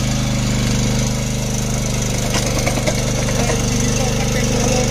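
Walk-behind power weeder's engine running steadily while it pulls a ridger through the soil, earthing up a narrow bed. There are a couple of brief clicks near the middle.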